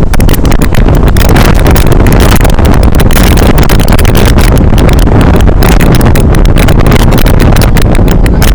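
Very loud wind buffeting the microphone on the roof of a moving bus, a continuous gusty rumble and roar that swamps everything else.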